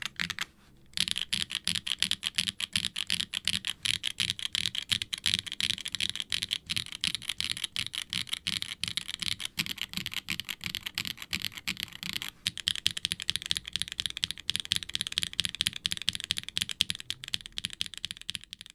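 Fast typing on a HIBI June mechanical keyboard with Swagkeys Ghost Dragon linear switches (POK top housing, nylon bottom housing, POM stem), FR4 plate, silicone case with no dampening and GMK double-shot ABS keycaps: a bright, clacky rattle of keystrokes. The typing stops briefly just under a second in.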